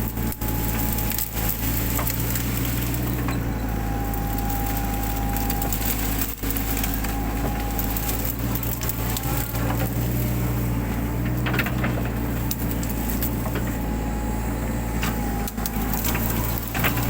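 Mini excavator's engine running steadily with a wavering higher whine, while woody brush cracks and snaps as it is torn out and crushed.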